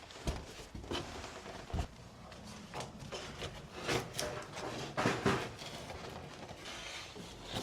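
Irregular knocks, thuds and scrapes of building work as timber is handled and set in place, with a few sharper clacks about four and five seconds in.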